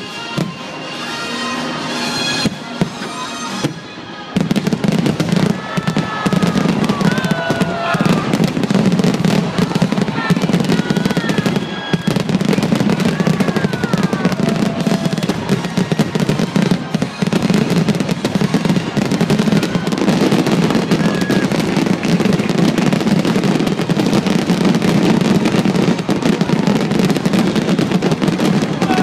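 Music for the first few seconds. Then, from about four seconds in, a fireworks grand-finale barrage: rapid, overlapping shell bursts and crackling without a break.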